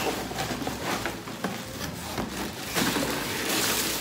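Cardboard box and plastic wrapping rustling and scraping as a plastic-wrapped bin is pulled out of its box, with a few light knocks.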